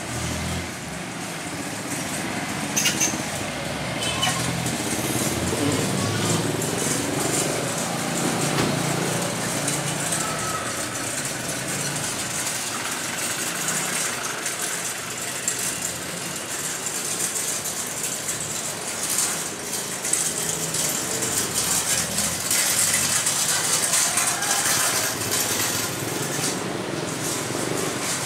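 Busy street ambience from a moving cycle rickshaw: motorbike and vehicle engines running nearby, rattling, and scattered voices.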